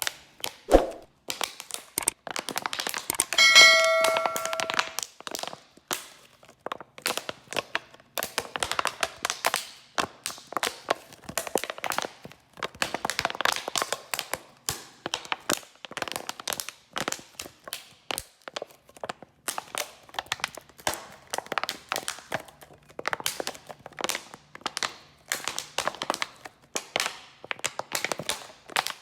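Bottle handling sounds: a dense, irregular run of clicks, taps and crackles, with a thump just under a second in and a ringing clink about three and a half seconds in.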